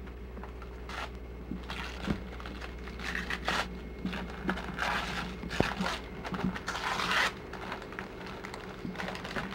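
Wrapping paper crinkling and tearing in irregular bursts as a small present is unwrapped by hand, dying down over the last couple of seconds.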